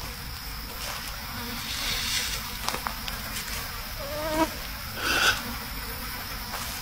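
Insects buzzing with a thin, steady high whine. A short rising call comes about four seconds in, and a brief hiss about a second later.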